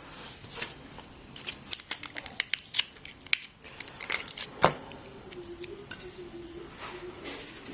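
A quick run of small, sharp clicks and snips from hand tools working tape and a ripcord along an iPad frame, with one louder click about two-thirds of the way through.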